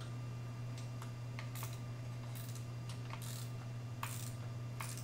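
Socket ratchet clicking in short, irregular strokes as an 11 mm socket loosens the exhaust muffler clamp bolt, over a steady low hum.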